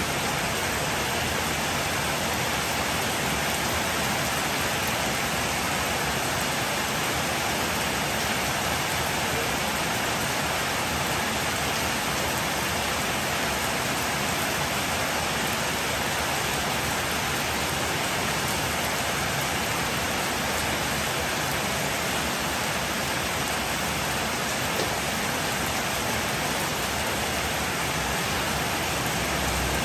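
Heavy rain falling steadily on a wet street, an even hiss.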